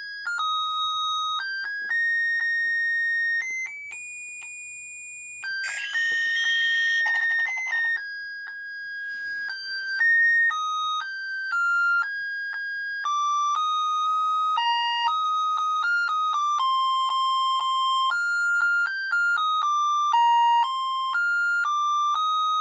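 Animated singing Santa figure's electronic music chip playing a tune: a tinny, single-line melody of beeping notes, with a brief fuller passage about six seconds in.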